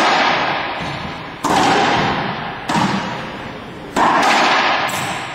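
Racquetball rally: three hard hits of the ball, about one every second and a quarter, each cracking off racquet or wall and ringing out with a long echo in the enclosed court.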